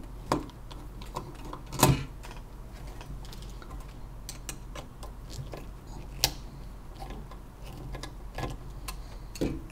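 Scattered light clicks and metal clinks of a screwdriver working on a temperature probe's mounting bracket as it is loosened and turned, with a sharper knock about two seconds in and another a little after six seconds, over a low steady hum.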